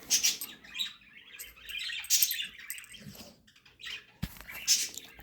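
Several short, high-pitched chirping calls from a small pet animal, spread over a few seconds. There is a single low thump about four seconds in.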